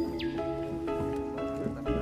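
Background music: a melody of held notes that change pitch every half second or so.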